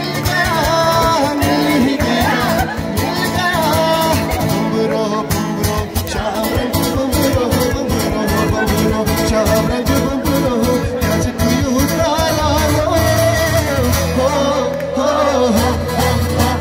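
A live acoustic guitar strummed in a steady rhythm with singing over it. A heavier bass comes in about three-quarters of the way through.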